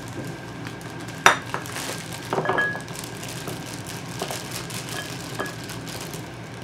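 A ceramic bowl set down on a stone countertop: a sharp knock about a second in, then a ringing clink a second later. After that come small clicks and plastic rustling as baby carrots are taken from a plastic bag and dropped into the bowl.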